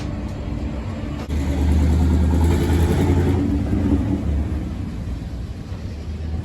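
City street traffic, with a motor vehicle's engine rumbling loudly close by from about a second in and easing off after about four seconds.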